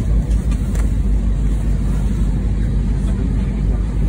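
Steady low rumble of an Airbus A320 passenger cabin, heard from a seat, with the noise weighted heavily toward the low end.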